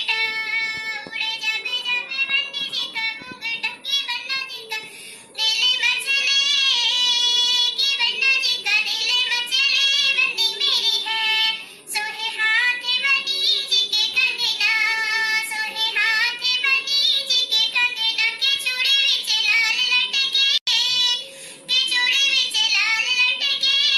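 A high-pitched female voice singing a Bundelkhandi dadra folk song (gari geet) in phrases broken by short pauses.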